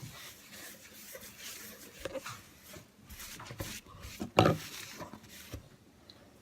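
Rubbing and scraping handling noises with scattered clicks, and one sharp knock about four and a half seconds in.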